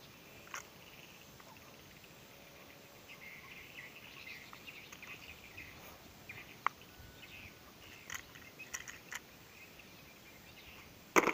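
Faint outdoor background with light high chirping, broken by a few small plastic clicks as a cordless drill is handled and set up, and one loud sharp click near the end. The drill motor is not running.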